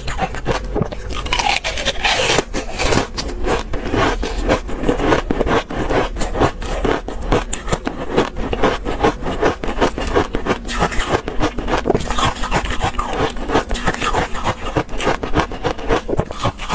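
Thin slices of ice being chewed close to the microphone, a continuous run of sharp, crisp crunches, several a second.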